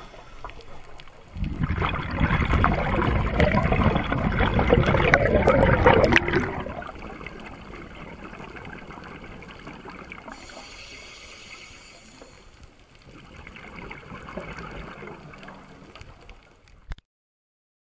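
Underwater sound of a scuba diver breathing through a regulator: a long, loud rush of exhaled bubbles lasting about five seconds, then softer water noise with a brief higher hiss midway and a quieter bubbling stretch near the end.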